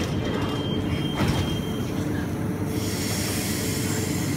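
Queensland Rail EMU electric train standing at the platform with its equipment humming steadily, while a thin, steady high warning tone sounds until about two seconds in. About a second in the doors shut with a knock, and near three seconds a hiss of air starts as the train readies to depart.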